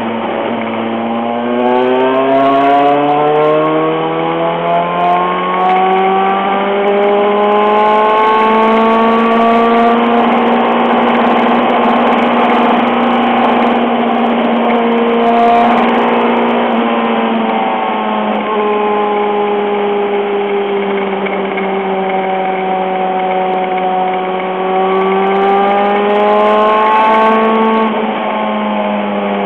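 Honda CBR954RR's inline-four engine pulling hard at high speed, accelerating from about 95 to 190 km/h. Its pitch climbs over the first several seconds and holds high, dips briefly a little past halfway, then climbs again and eases off near the end.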